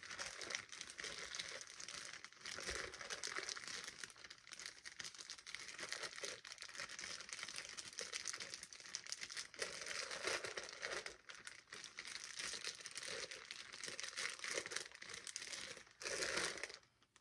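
Clear plastic bag crinkling continuously as hands rummage through it and handle it, stopping shortly before the end.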